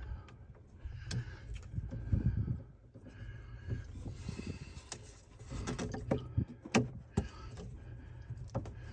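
Clicks, taps and knocks of a plastic-and-brass PEX shutoff valve and its fittings being handled and fitted onto a cut PEX water line, in small clusters with one sharper knock after about seven seconds.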